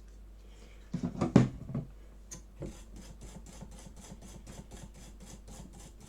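Quick, even scrubbing strokes on the Xbox Series S circuit board around the HDMI port pads, cleaning off brownish residue with isopropyl alcohol. A brief louder sound comes about a second in, before the steady scrubbing starts.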